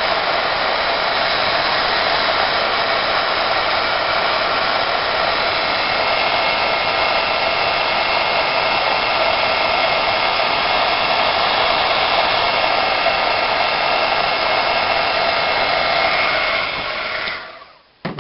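Craft heat tool blowing hot air over a small paper strip, a steady whirring rush with a faint whine, switched off near the end.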